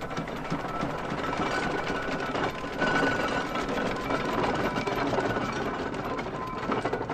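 Rapid mechanical rattling and clattering of an early motor car driving over a rough road, with many fast ticks.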